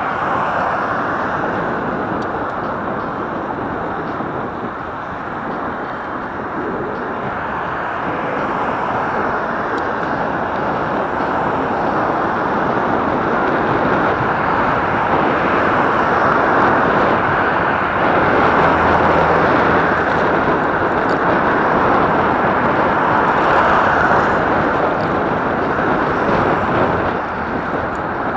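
Steady, muffled rush of wind and tyre-on-asphalt noise picked up by a camera mounted on a moving bicycle, growing a little louder past the middle and dropping slightly near the end.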